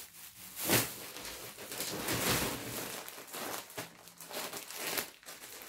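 Clear plastic wrapping around packs of yarn crinkling and rustling on and off as the packs are handled.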